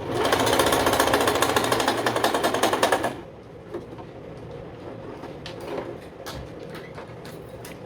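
Vigorelli 238 sewing machine running fast and sewing its widest zigzag stitch, with a rapid, even needle clatter. It stops abruptly about three seconds in, followed by a few faint clicks of handling.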